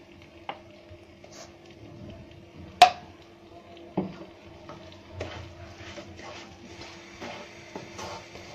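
Raw rice frying in ghee in a nonstick pan, stirred and scraped with a wooden spoon, with a light sizzle that builds in the second half. A sharp knock near three seconds in and a smaller one a second later.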